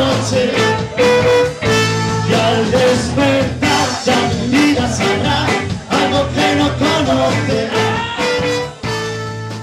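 Live 1960s-style band with trombone and electric guitars playing a ska/rock-and-roll number to a steady beat. Near the end it lands on a long held final chord that starts to fade.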